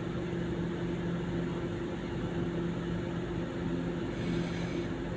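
Steady machine hum with constant low tones over an even noise background, and a faint brief high hiss about four seconds in.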